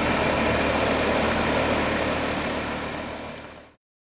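2020 Tempstar heat pump running steadily in cooling mode, its compressor and fan giving a constant hum. It fades away and stops shortly before the end.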